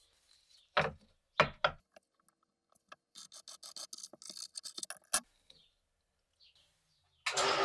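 Three sharp knocks of tools on a wooden workbench, then a rapid run of scratching strokes as a scribe marks the machete's metal tang. Near the end a power tool's motor starts with a loud, steady whir.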